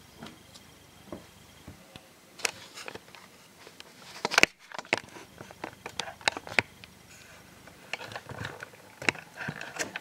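Handling noise as a laptop is turned over and set down on a desk: a series of clicks and knocks from its plastic casing, the loudest about four and a half seconds in.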